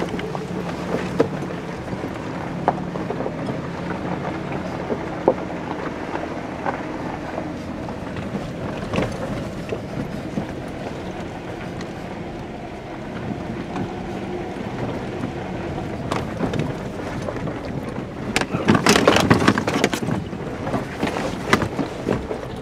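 A 4x4's engine running at low speed as it crawls over a rocky trail, heard from inside the cab, with scattered knocks and clatters of tyres and body on loose rock. A louder rush of noise comes about nineteen seconds in.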